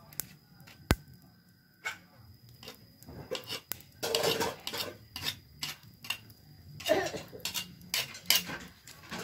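Twig fire burning in an earthen wood-fired stove, giving scattered sharp pops and cracks, with a few irregular clattering knocks.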